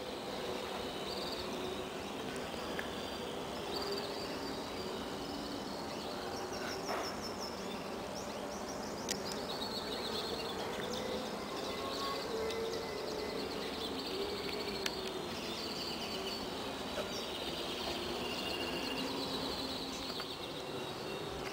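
Outdoor ambience: small birds chirping and trilling over a steady background hum, with a few brief light clicks.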